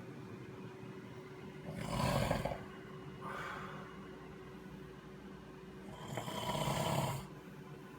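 Snoring: a loud snore about two seconds in, a softer breath just after it, and a longer loud snore about six seconds in.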